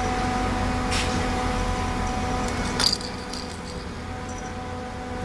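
Steady machine hum with a faint click about a second in and a short rattling clatter on the plastic slatted pen about halfway through, as the whippet puppy moves about on it.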